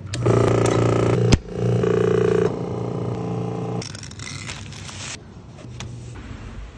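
Bailey mixer-pugmill's electric motor running with a steady hum, with one sharp click about a second and a half in. For the last few seconds, quieter scraping and handling of clay.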